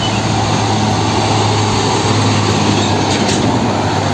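Isuzu tanker semi-truck driving along the road: a steady low engine hum under an even rush of tyre and road noise.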